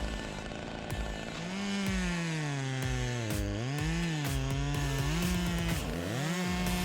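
Husqvarna two-stroke chainsaw run at high revs under cutting load, the engine note sagging and climbing back several times, with the deepest dips about halfway through and near the end.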